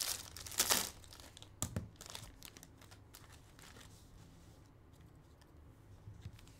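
Foil trading-card pack wrapper crinkling and tearing as hands handle it, loudest in two rustles within the first second, with a sharp tap a little under two seconds in, then faint handling noise.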